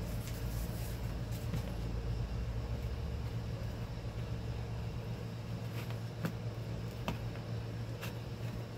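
A steady low hum of machinery, with three light clicks or taps spaced about a second apart near the end.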